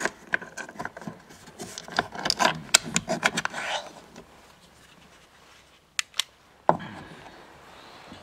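Hand tools and parts being handled while working on a car door: a busy run of clicks and rattles for about four seconds, then two sharp clicks and a knock near the end.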